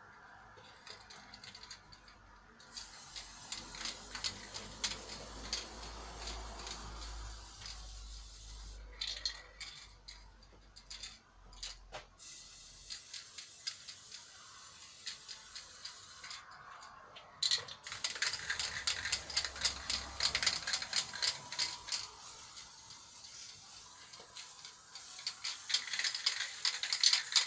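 Aerosol spray-paint can in use: stretches of spraying hiss broken by short pauses, then, in the second half, the can shaken hard so its mixing ball rattles quickly, loudest near the end. The can is running low on paint.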